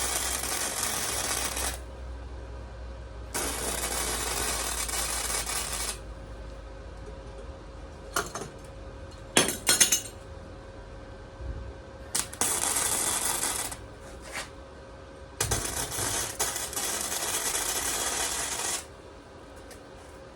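Welding arc crackling in four bursts of a couple of seconds each, welding a small section of a steel bracket. Between the second and third bursts come a few sharp metallic clicks and knocks.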